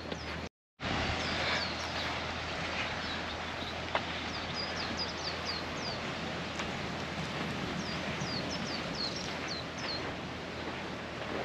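Small birds chirping over steady outdoor hiss: repeated short, high, falling chirps in quick clusters. The sound drops out completely for a moment about half a second in.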